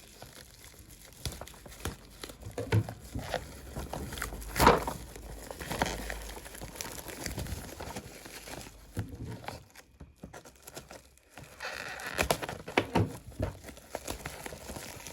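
A package being unwrapped and handled by hand: crinkling and rustling of wrapping with scattered clicks and knocks, one louder knock about a third of the way in.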